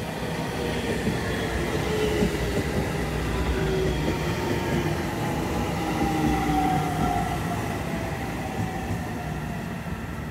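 JR Central 313 series electric train pulling into the station and slowing: wheels rumbling on the rails under the whine of the electric drive, which falls steadily in pitch as the train brakes. It is loudest as the cars pass close by and fades as the train draws away down the platform.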